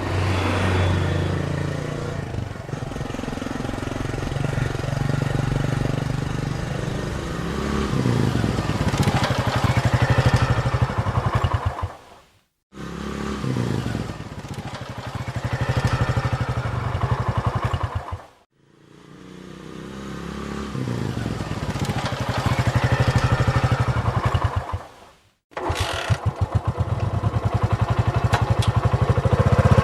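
Motorcycle engine running and revving in a series of separate takes, its pitch and loudness rising and falling, with three brief silent cuts between takes.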